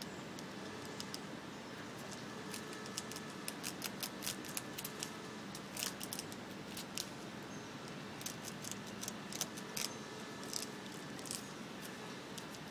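Fox squirrel gnawing through a dry woody plant stalk: quick runs of sharp, crisp crunching clicks that start about a second in, pause briefly past the middle, and stop shortly before the end.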